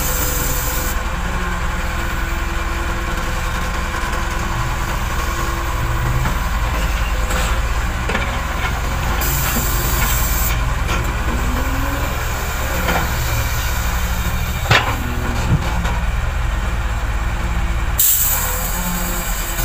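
Heavy diesel earthmoving machinery running steadily, with a low rumble and some rising and falling whine. Short bursts of hiss come near the start, about ten seconds in and near the end, and two sharp knocks come about fifteen seconds in.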